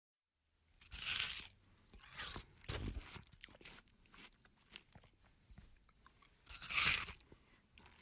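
A person biting into watermelon and chewing it: a series of separate bites and chews starting just under a second in. The two loudest bites come about a second in and near the end, with smaller chewing sounds in between.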